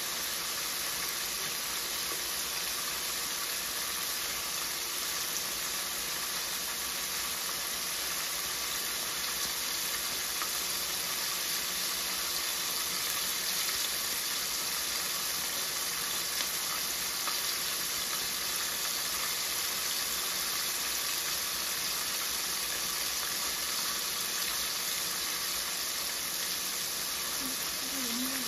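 Small whole fish shallow-frying in hot oil in a pan: a steady sizzle.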